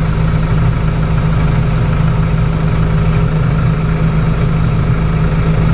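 Case IH 75C tractor's diesel engine running steadily at a constant speed.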